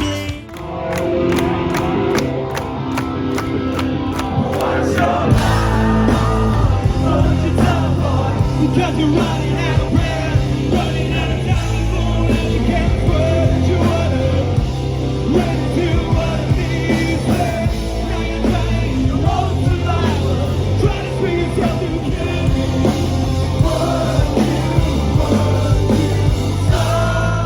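Rock band playing, with a singer whose vocals are partly yelled. It opens on a steady beat alone, and the heavy bass and full band come in about five seconds in.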